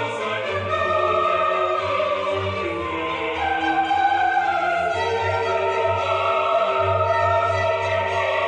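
Classical-style music with sung voices over orchestral accompaniment, held notes changing slowly.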